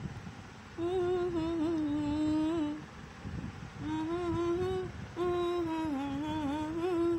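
A woman humming with closed lips in three drawn-out phrases, the pitch wavering up and down, with short gaps between them.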